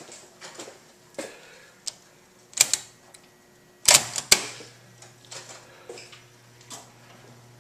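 1951 Seeburg B jukebox selection keys being pressed: a run of sharp mechanical clacks, the loudest in two clusters a little more than a second apart. A steady low hum comes on right after the second cluster, with a few lighter clicks over it, as the jukebox mechanism starts up.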